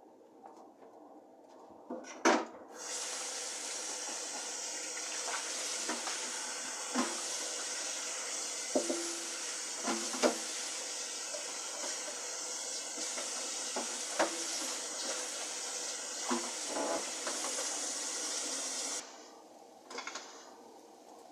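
Kitchen tap running into the sink for about sixteen seconds, with pots and dishes clinking now and then, and the water shut off near the end. A sharp clank of a pot comes just before the water starts.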